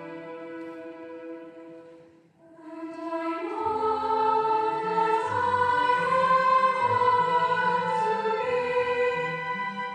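Women's youth choir singing with orchestra. A held chord fades away about two seconds in. After a brief hush a new, louder phrase begins, and low bass notes join about a second later.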